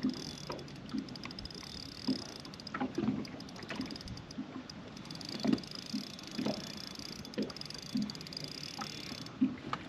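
Water lapping against a boat's hull in irregular low slaps, about one or two a second, over a steady high hiss that stops shortly before the end.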